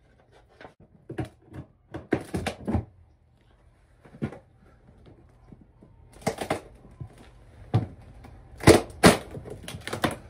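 Irregular wooden knocks and thuds from old, partly rotted floorboards being pried up and pulled loose by hand. There is a cluster of knocks about two seconds in, more around six seconds, and the two loudest thuds near the end.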